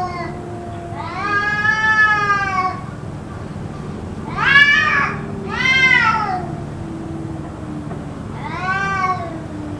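Cats caterwauling: four long, arching yowls, with a lower drawn-out moaning tone running underneath between them. The uploader takes it for a possible cat fight.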